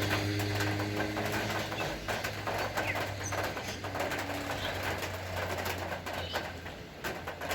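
Rain falling, with many scattered drops and drips clicking, and birds calling faintly, doves among them. A low hum fades away within the first two seconds.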